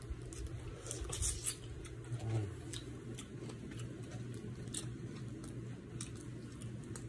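Cooked shrimp being peeled by hand: scattered small crackles and clicks of the shell coming away, with some chewing, over a steady low hum.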